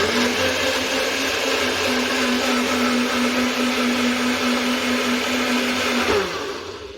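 Small electric kitchen appliance motor, blender-type, running at high speed with a steady whine. About six seconds in it is switched off, and its pitch falls as it spins down.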